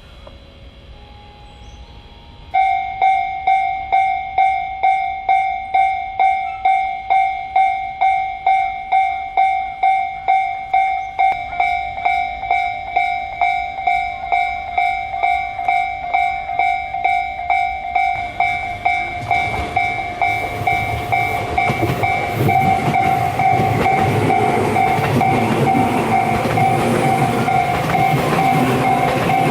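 Japanese level-crossing alarm starts about two and a half seconds in, ringing a steady electronic bell tone about twice a second. From about twenty seconds in, a train runs past over the crossing, its rumble and wheel clicks over the rail joints under the still-ringing bell.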